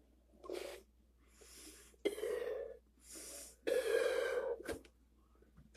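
A person blowing air into slime to make bubbles: about five short breathy blows over four seconds, some with a faint wheezy whistle.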